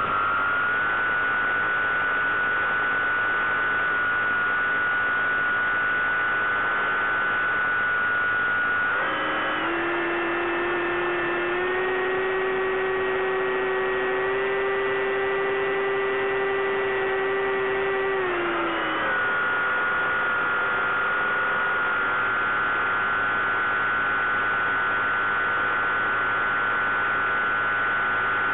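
Bixler 3 RC plane's electric motor and propeller whining steadily, heard from on board with constant radio hiss. About nine seconds in, the pitch drops sharply to a lower hum as the throttle is eased back. About ten seconds later it climbs back to the higher whine.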